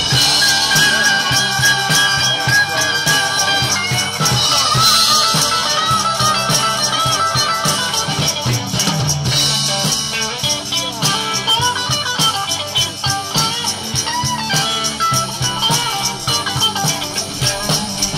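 Rock music with electric guitar and a steady beat, shaken percussion like a tambourine playing along; an instrumental stretch with no singing.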